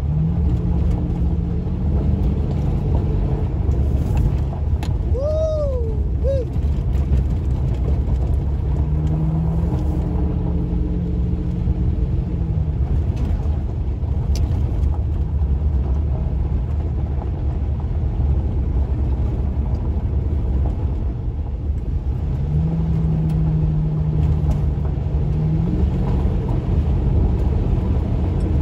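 Pickup truck driving on a gravel road, heard from inside the cab: steady low tyre and road rumble under the exhaust of a Black Widow Venom 250 muffler. The engine note rises and settles back a few times as the throttle changes. A short squeaky tone sounds about five seconds in.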